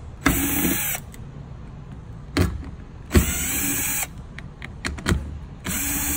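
Power driver with a number 8 socket spinning off number 6 kep nuts: three short runs of the motor, each under a second, near the start, about three seconds in and near the end, with a few sharp clicks of metal between them.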